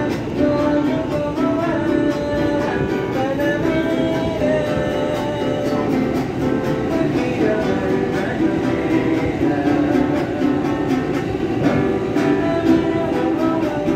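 A busker strumming an acoustic guitar and singing inside a moving subway car, over the steady rumble of the train.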